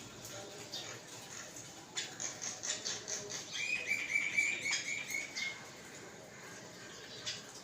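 Hill mynas feeding and calling: scattered short, sharp clicks and calls, with a quick run of about a dozen chirps in the middle.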